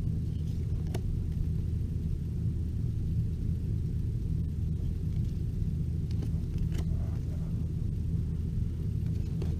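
A steady low rumble with a few faint clicks and rustles of old baseball cards being handled and pulled apart.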